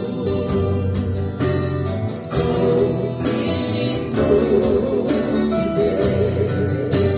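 Live gospel music from a small band: guitar over a steady beat, with singing.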